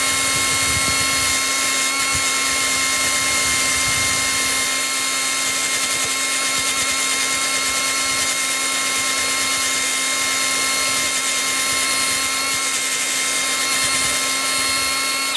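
Electric power tool running at a steady pitch while it scrubs caked crud off chainsaw chain teeth, with a scratchy hiss over the motor tone; it cuts off suddenly at the end.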